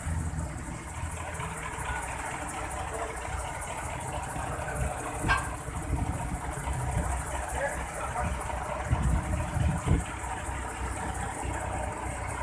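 Heavy diesel engine idling steadily, with a sharp click about five seconds in and a few low thumps a little later.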